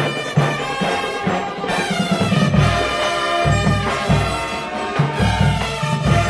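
Drum and bugle corps playing a pop arrangement: brass bugles carrying the melody in sustained chords over a steady beat of bass drums and percussion.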